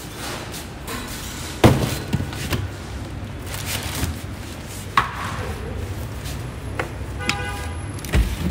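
Two sharp knocks, about three seconds apart, over a steady low background hum, with a dull thump near the end.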